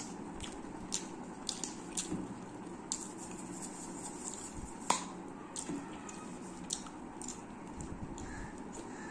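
Close-up eating sounds with bare hands: scattered soft wet clicks and smacks from fingers and lips on a curry-coated boiled egg, with one sharper click about five seconds in as a small plastic salt shaker is handled.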